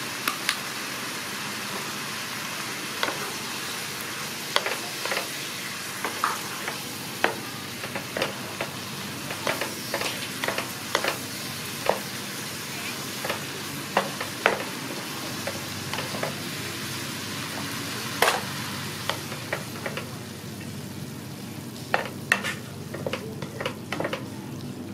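Pork and chopped vegetables sizzling as they are stir-fried in a pan. Irregular sharp taps and scrapes come from the spatula against the pan as it stirs.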